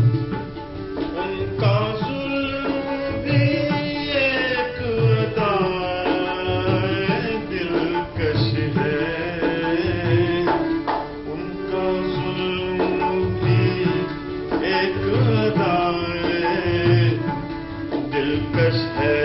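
Ghazal accompaniment: tabla keeping a steady rhythm with deep bass strokes, under a gliding melody line over a held drone.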